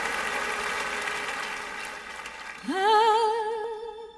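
Audience applause dying away, then about two and a half seconds in a female singer starts her first note, sliding up into it and holding it with a wide vibrato.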